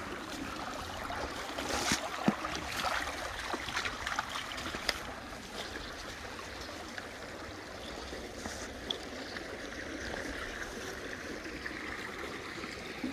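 Shallow creek water running over rocks, a steady rushing noise, with a few sharp clicks and knocks in the first five seconds or so.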